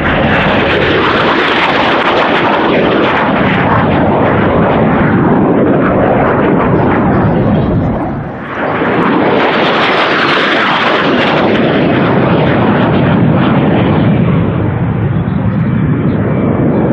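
MiG-17 jet fighter's turbojet running at high power through low passes and climbs, a loud continuous jet roar that dips briefly about eight seconds in and then builds again.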